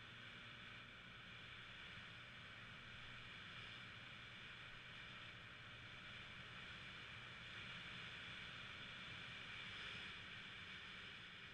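Yamaha 125cc scooter's single-cylinder engine running at a steady cruise, faint under a steady hiss of wind and road noise, swelling slightly near the end.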